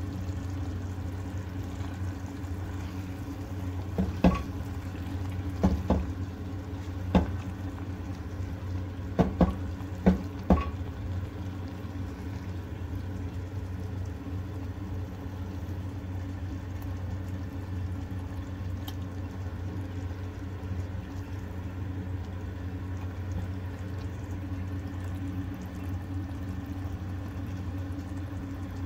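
Tinda curry simmering in a clay handi, a steady bubbling over a low hum. In the first half, a spoon stirring it knocks sharply against the clay pot about eight times.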